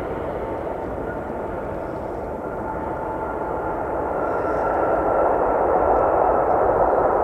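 Jet airliner engines: a steady rushing noise with a faint high whine, growing louder from about halfway through as the aircraft nears.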